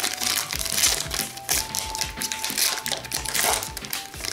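Plastic trading-card pack wrapper crinkling as it is torn open by hand, over quiet background music.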